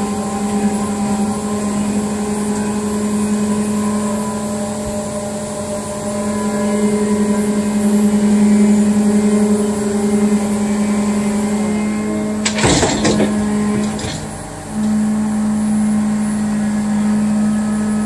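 Cat 299D3 XE compact track loader's diesel engine running steadily as the machine tracks along a trailer deck. A short cluster of clanks comes about two-thirds through, and the engine then carries on steadily.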